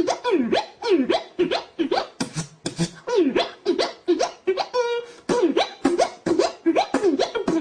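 Human beatboxing: fast percussive mouth sounds, about four to five hits a second, with quick falling vocal swoops between the hits. Near the middle a brief held buzzing note breaks the pattern.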